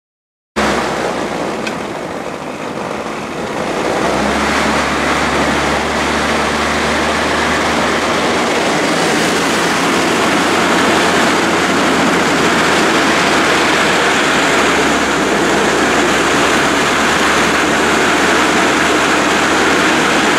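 Home-built rail trolley powered by a motorbike engine, running along the track: a steady engine drone under a loud rushing noise. The sound cuts in abruptly about half a second in, and the engine note strengthens about four seconds in.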